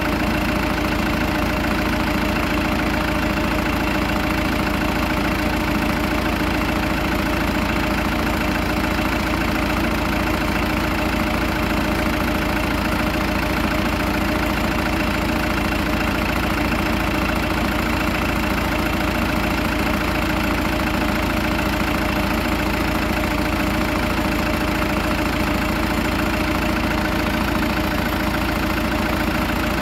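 Zetor 7340 Turbo tractor's turbocharged diesel engine running at a steady speed, its pitch and level unchanging.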